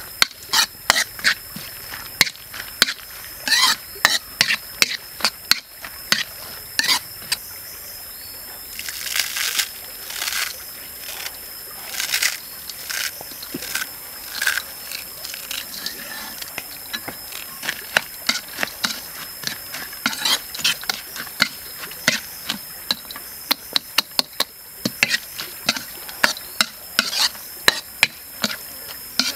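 Metal ladle clinking and scraping against a black iron wok while vegetables, squid and noodles are stir-fried, with irregular sharp knocks several times a second over a low hiss of frying. A thin steady high tone runs underneath.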